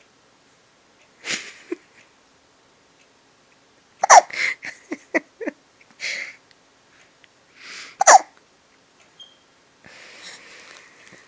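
Hiccups: short, sharp catches of breath about a second in, then louder ones about four and eight seconds in. Quieter breathy sounds come between them.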